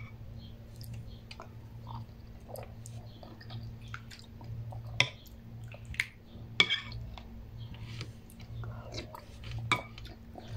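Someone eating noodle soup with a spoon: chewing, with a few sharp clicks of the metal spoon against the ceramic bowl, over a steady low hum.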